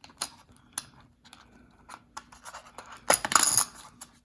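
Coins and their presentation folder being handled: scattered small clicks and taps, with a louder scraping rustle about three seconds in.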